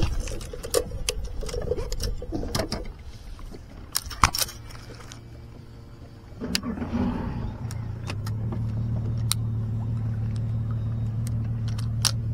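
A boat's outboard engine starts about six seconds in and settles into a steady idle. Before that, there are scattered clicks and rattles of gear being handled.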